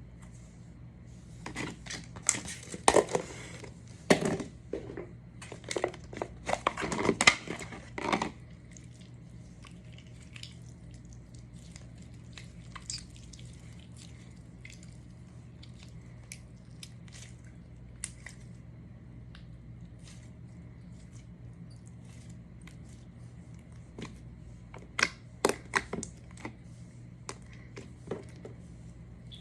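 Slime being squeezed and worked by hand, giving bursts of irregular crackling and popping. The first burst lasts several seconds, scattered pops follow, and a second burst comes near the end, all over a steady low hum.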